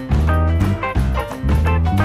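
Background music: an upbeat swing-style tune with a bouncing bass line, guitar and drums.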